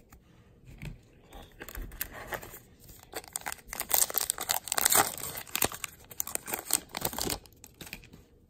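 A trading-card pack wrapper being torn open and crinkled by hand, in a run of irregular crackling rips that is loudest about halfway through.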